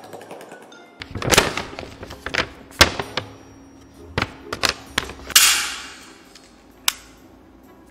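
Foley sound effects: a series of separate sharp knocks and clicks, then a louder burst with a fading hiss about five and a half seconds in, and one more click near the end.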